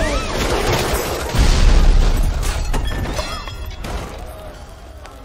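Film sound effects of a large crash: a heavy boom about a second and a half in, then debris clattering down and fading away.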